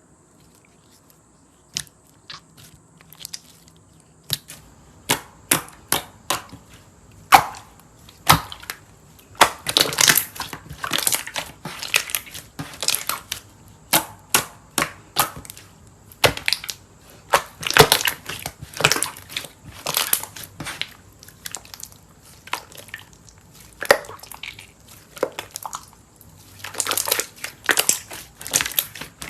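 Slime being squeezed and pressed by hand, making sharp crackles and pops. The pops are sparse at first and come in dense crunchy clusters later on.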